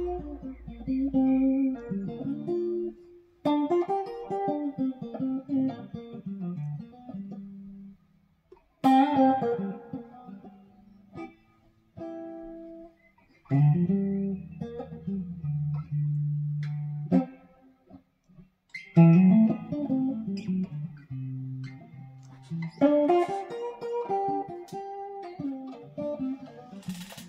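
Solo electric guitar playing slow blues lead lines: phrases of single picked notes and bent notes, with short pauses between phrases.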